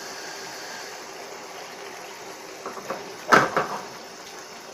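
Haddock curry sauce simmering and bubbling in a frying pan, a steady sizzling hiss. About two-thirds of the way through comes a quick clatter of three sharp knocks.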